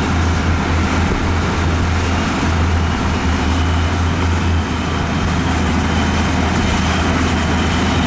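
Diesel engine of a Komatsu D41P crawler bulldozer running as it pushes dirt, mixed with a dump truck's diesel engine nearby: a steady, loud low drone. A faint high whine joins about three seconds in.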